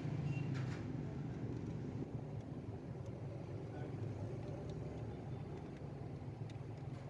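Steady low mechanical hum, like an engine running, with a faint click about half a second in.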